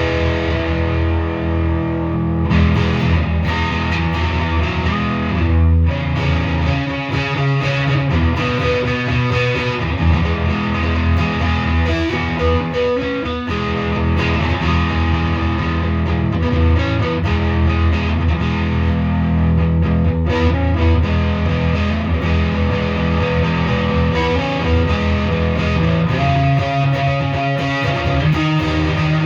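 Gibson Les Paul 50s Standard electric guitar with P90 pickups played through an overdriven amp: a continuous run of riffs and chords with sustained low notes.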